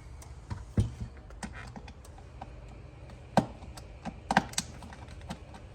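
Scattered clicks and taps of small screws and plastic steering-wheel parts being handled and set down during disassembly, a few louder knocks among them.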